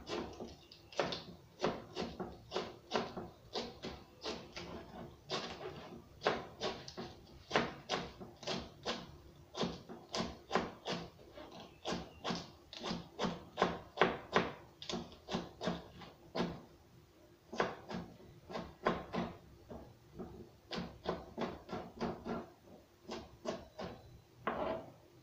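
Kitchen knife shredding cabbage on a plastic cutting board: a steady run of crisp cuts, about two a second, with a short pause about two-thirds of the way through.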